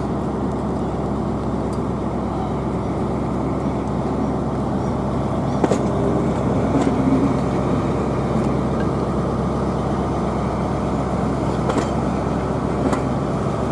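Steady rumble of a moving vehicle with a few sharp clicks scattered through it.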